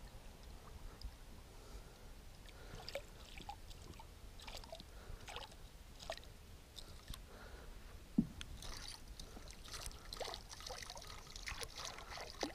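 Faint water sloshing and small splashes at the boat side as a muskie lure is worked through the water right beside the boat. It is busier in the second half.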